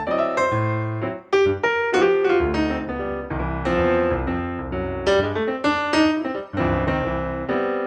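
Solo piano music, struck notes over a low bass line.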